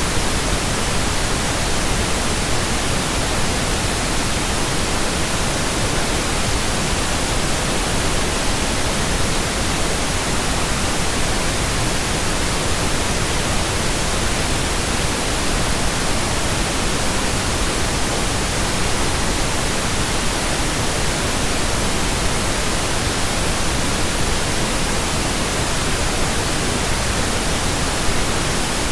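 Steady synthetic pink noise: an even, unchanging hiss across all pitches, with no tones or breaks.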